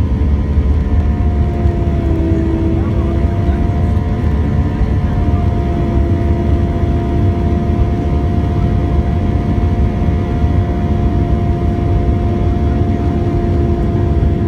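Airliner cabin noise inside an Airbus A321: a loud, steady low rumble with several steady engine tones humming above it.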